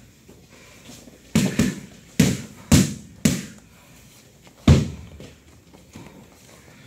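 Six sharp thuds in a training gym, the first two close together and the last after a short gap, each with a brief ringing decay.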